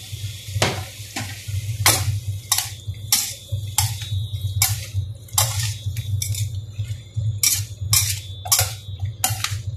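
A metal spatula scraping and clanking against a stainless steel wok as vegetables are stir-fried, in repeated strokes about one to two a second, over a steady low hum.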